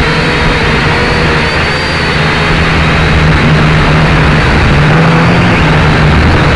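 Drone's electric motors and propellers whirring loudly, heard from the camera on the drone itself: a steady buzzing whir over a low hum that wavers a little in pitch, getting somewhat louder about halfway through.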